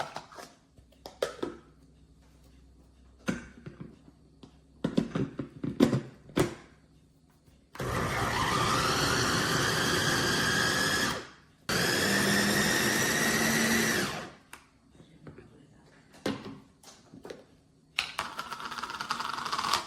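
GANIZA electric food chopper's 450 W motor running in pulses. The first run lasts about three seconds from about eight seconds in and rises in pitch as the blades spin up. A second run of about two seconds follows straight after, and a shorter one comes near the end, with scattered clicks and knocks before the first run.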